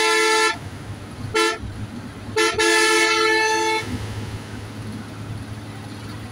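A road vehicle's horn honking, sounding two notes together. A held blast cuts off half a second in, a short toot follows about a second later, then a longer blast of over a second. After that comes the steady low hum of engine and tyres on the road.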